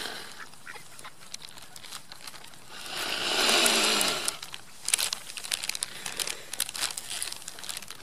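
Mallard ducks quacking. There is a louder swell lasting about a second and a half around the middle, and a run of scattered sharp clicks in the second half.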